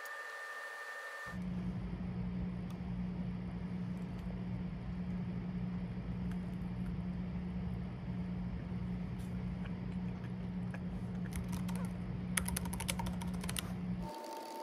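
A steady low hum, and from about eleven seconds in a quick run of clicks from fingers typing on a laptop keyboard.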